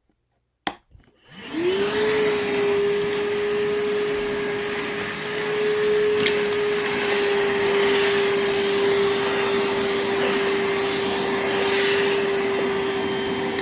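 Milwaukee M12 1.6-gallon cordless wet/dry vacuum switched on at high speed with a click, spinning up within about a second to a steady high whine with rushing air as it sucks up a pile of loose coconut fiber substrate. It is switched off at the very end and starts to wind down, its pitch falling.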